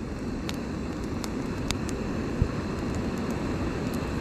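Jetboil canister gas stove burning steadily with a hiss under a lidded cup of chili, with scattered sharp crackles from a campfire.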